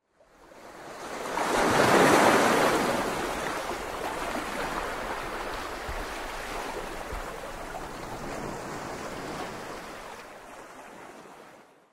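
Sea waves washing in: the surf swells to a peak about two seconds in, runs on steadily, then fades out near the end.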